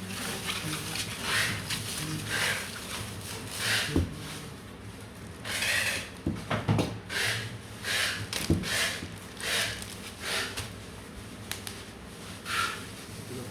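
Repeated short scraping or rubbing strokes, about one a second, with a few sharp knocks in the middle.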